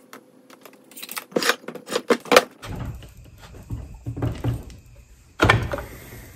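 Light metal clicks of a hex key on a set screw, then a Bridgeport mill's cast aluminium belt housing knocking and scraping on the workbench as it is handled and turned over, with a heavy thump about five and a half seconds in.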